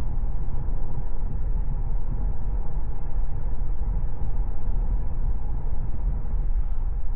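Steady road and tyre noise heard inside the cabin of a moving Tesla electric car.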